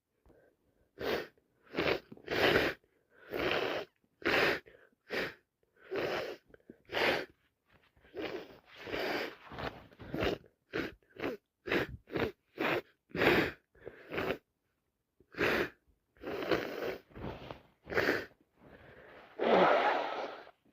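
A person sneezing over and over in quick succession, about two dozen short sneezes one or two a second. A longer, louder burst comes near the end.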